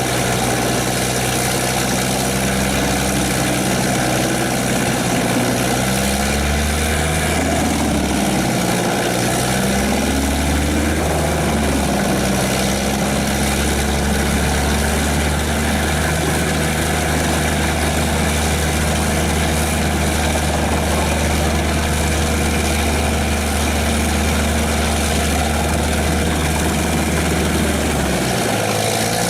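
Engine of a heavy tracked wood chipper running steadily, its pitch sagging and recovering a few times a little way in, as it takes load.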